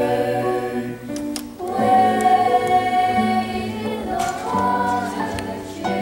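Choir of young voices singing a slow, spiritual-style song in sustained phrases, with short breaths between phrases about one and a half seconds and four seconds in.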